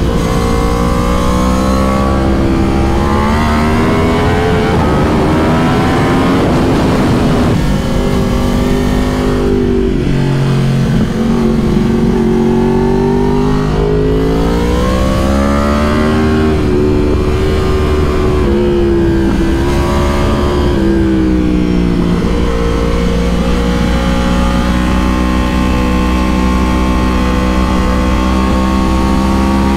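Yamaha R1 inline-four engine heard from onboard while riding, its revs climbing and dropping repeatedly through the bends, then holding steadier and slowly rising near the end, over wind rush on the microphone.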